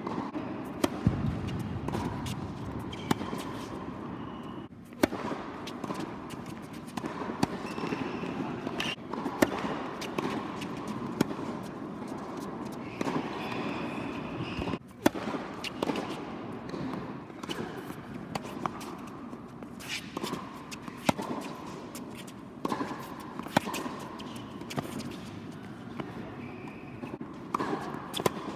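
Tennis balls being struck by racquets and bouncing on an indoor hard court: sharp pops at irregular intervals throughout, over the steady background noise of a large indoor hall.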